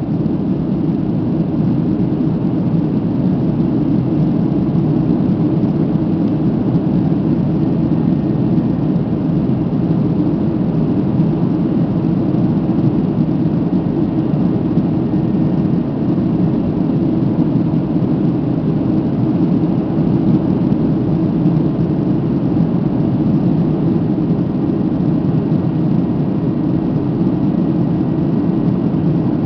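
Steady cabin noise of a Boeing 767 in flight, heard from inside the passenger cabin: jet engines and rushing air blending into an even, deep noise that does not change.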